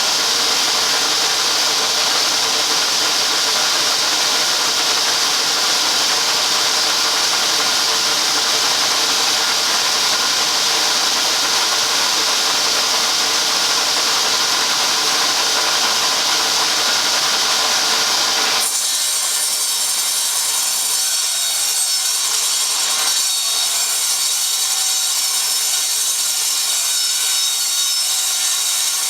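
Table saw running and ripping a sheet of 3/4-inch MDF lengthwise, a steady loud whine of blade in board. About two-thirds of the way through the sound changes suddenly and loses most of its low end.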